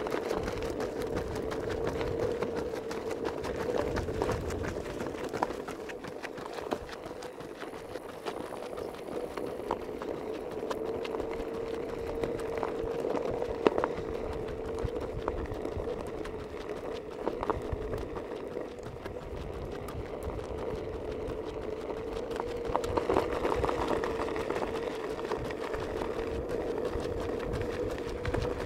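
Runners' footsteps pattering on a dirt road over a steady mechanical hum that holds one pitch throughout.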